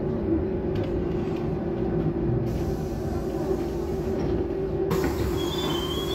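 Trolza Megapolis trolleybus cabin noise as it pulls up at a stop: a steady hum with a held tone. About five seconds in, a hiss sets in, with a few faint high chirps.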